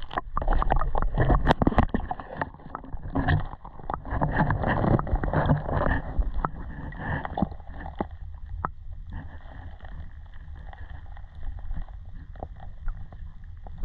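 Creek water sloshing and splashing around someone wading, with irregular knocks and clicks. Busier for the first half, settling down after about eight seconds.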